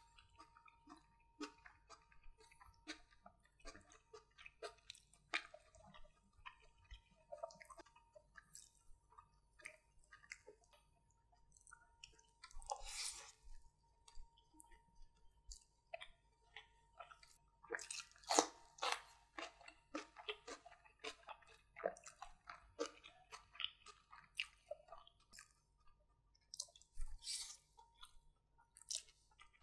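Close-miked chewing of a handful of fried rice and butter chicken curry: irregular short mouth clicks and smacks throughout, with a longer breathy rush a little before the middle and the loudest cluster of clicks just after it.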